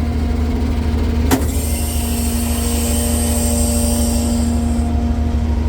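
Tractor engine running steadily under way, with one sharp click a little over a second in followed by a few seconds of hissing.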